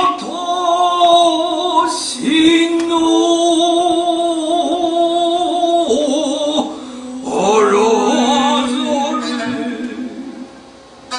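A voice singing long held notes with a slight waver, over sparse stage-music accompaniment with a few sharp struck accents. It drops down near the end.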